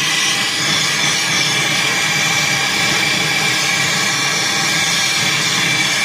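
Brazing torch flame hissing steadily as it heats a copper line joint before brazing.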